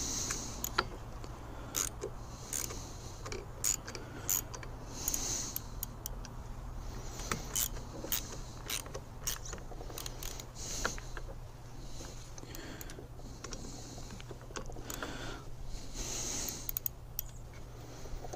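Irregular small metallic clicks and short scrapes of hand tools tightening the ignition coil's mounting screws on a Stihl small engine, over a steady low hum.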